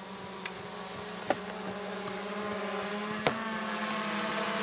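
Camera drone's rotors buzzing overhead: a steady hum of several tones that grows gradually louder. Two sharp clicks come through it, about a second in and again a little past three seconds.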